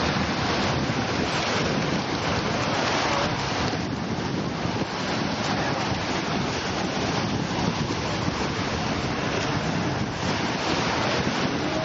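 Small waves breaking and washing up the beach, with wind buffeting the microphone, making a steady rushing noise with no clear pitch.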